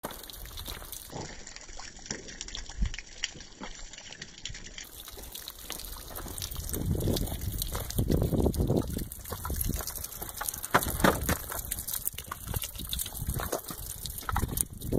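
Footsteps and handling rustle as a hand-held camera is carried up to a steel target plate over dry dirt, louder from about six seconds in, with water trickling from the wet target area.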